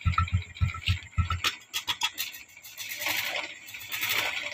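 Honda XRM 125's single-cylinder four-stroke engine idling with a low, even pulse, which cuts off about a second and a half in. A few light clicks and some faint rattling follow.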